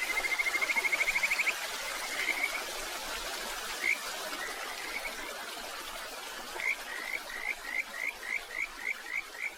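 Stream water running steadily, with a small creature's high calls over it: a fast rising trill at the start, a few single notes, then about ten short upward-sliding notes, roughly three a second, toward the end.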